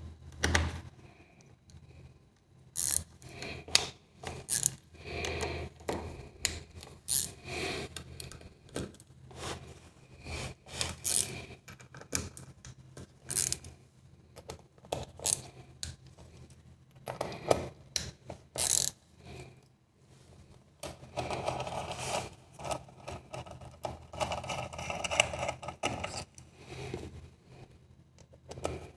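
Metal parts and hand tools clicking and knocking against the aluminium valve body of a ZF 6HP28 automatic transmission as it is taken apart, in a string of sharp separate clinks. About two-thirds of the way through this gives way to a few seconds of scraping and rubbing.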